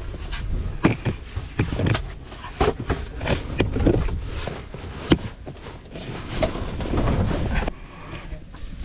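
Wind buffeting the microphone in a low, gusting rumble, with irregular sharp knocks and taps scattered through it.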